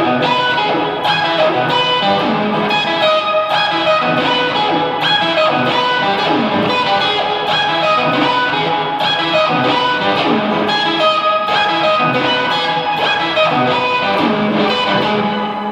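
Electric guitar played through an amp and a whammy pitch-shifting pedal, a riff of picked notes over ringing open strings with the pitch sweeping up and down, giving a somewhat synth-like sound. It fades out near the end.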